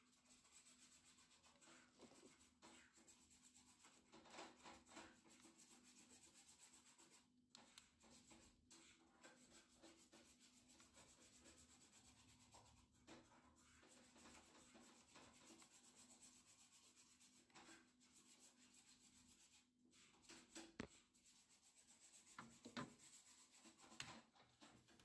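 Near silence: faint handling rubs over a low steady hum, with a few soft knocks near the end.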